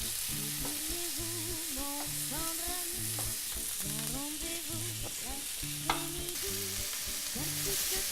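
Chicken pieces sizzling as they fry in a pan, a steady hiss, with one sharp knock about six seconds in. Background music with a bass line plays over it.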